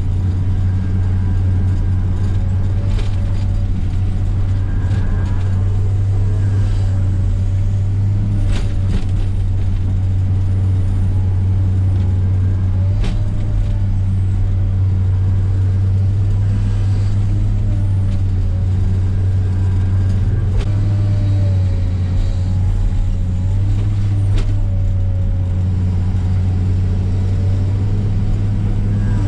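Komatsu PC300 excavator's diesel engine running steadily under working load, with a faint wavering whine over it. A few sharp cracks or knocks come through at intervals of several seconds.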